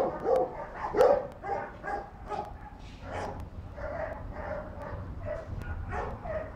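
Dog barking repeatedly, loudest about a second in, then quieter barks following steadily.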